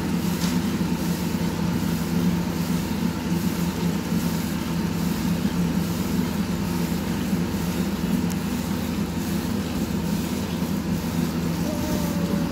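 A steady low machine-like hum, with a faint rhythmic hiss of milk squirted by hand from a water buffalo's teats into a steel bucket.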